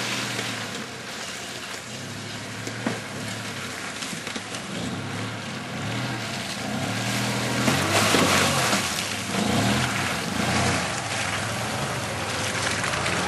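Chevrolet Blazer engine revving up and down under load as it crawls through deep mud, its pitch repeatedly rising and falling. It grows louder and noisier about eight seconds in as the truck comes close.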